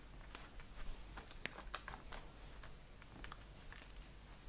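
Faint, scattered small clicks and taps as a pick tool lifts rhinestones off their sheet and presses them onto a paper card, with light paper rustle.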